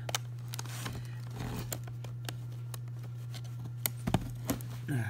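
A box cutter working through packing tape on a cardboard box: scattered short clicks and scrapes, the sharpest a quick cluster of clicks about four seconds in. A steady low hum runs underneath.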